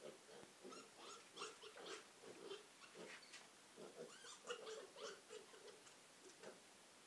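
A litter of 27-day-old piglets calling: a dense run of short grunts and squeals that dies away about six and a half seconds in.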